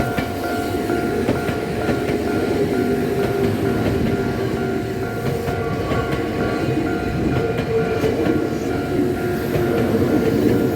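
Kyoto Municipal Subway 10 series electric train passing close by, with a steady rolling rumble and wheels clattering over the rail joints. A level crossing alarm rings in a quick, even beat, about twice a second, throughout.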